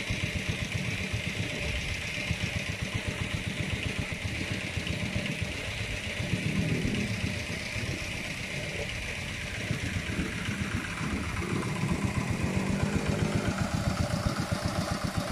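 Diesel engines driving irrigation water pumps, running steadily with a rapid even beat; the engine grows louder in the last few seconds as it comes close.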